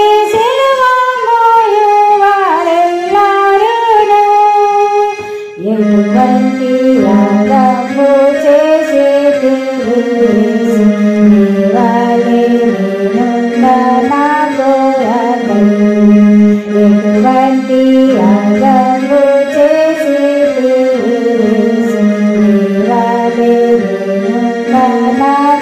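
Outro music: a melodic song with singing over instrumental accompaniment in an Indian style. It dips briefly about five seconds in, then continues with a fuller, sustained lower part.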